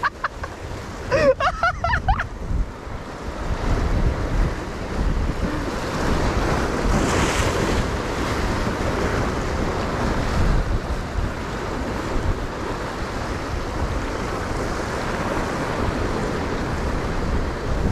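Surf washing and breaking against shoreline rocks, with wind buffeting the microphone.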